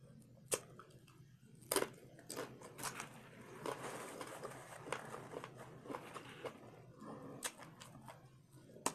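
Close-miked biting and chewing of hard-fried corn taco shell: sharp crunches, the loudest about two seconds in, with smaller crunches and clicks of chewing after. A paper napkin rustles against the mouth in the middle stretch.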